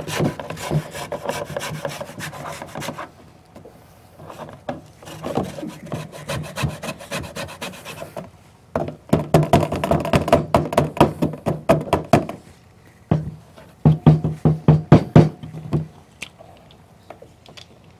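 Cupcake batter being mixed by hand, a utensil scraping and rubbing against the mixing bowl in quick repeated strokes. The strokes come in spells with short pauses between them.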